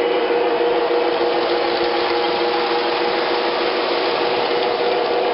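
O gauge model trains running on metal track: a steady motor whir with the grinding rumble of wheels on the rails, which swells in the middle as a string of freight cars passes close by.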